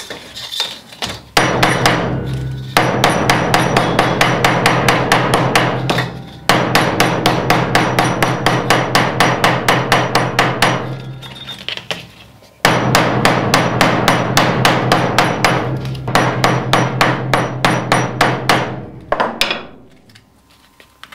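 Round-faced hammer pounding cow back sinew on a small metal anvil: rapid strikes about four a second in long runs with short breaks, the metal ringing under the blows, stopping a couple of seconds before the end. The pounding softens the stiff sinew so that it starts to split into fibres.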